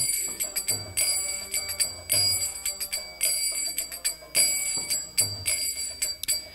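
Kirtan accompaniment between sung lines: small hand cymbals (karatals) ringing in a steady beat about twice a second, with a few soft low drum strokes.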